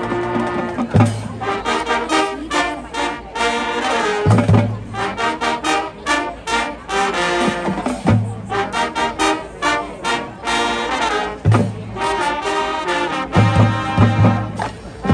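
High school marching band playing a brass-led tune, trumpets and trombones over low bass notes and drum hits that come every few seconds.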